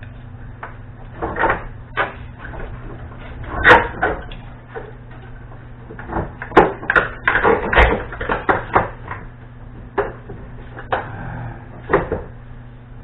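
Irregular metal clunks and knocks as the Beetle's engine is tilted and worked off the clutch while being lowered on a jack, busiest in the middle, over a steady low hum.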